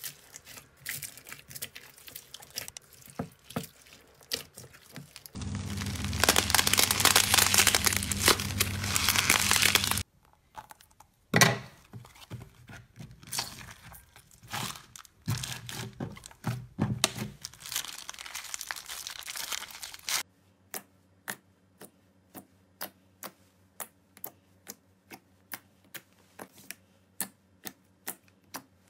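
Slime being worked by hand. First the dense crackle of foam-bead slime being kneaded, then a loud steady crackling for about five seconds. Next come scattered snaps and pops as a glossy slime is squeezed, and finally evenly spaced pops, about two a second, as fingertips press into clear jelly slime.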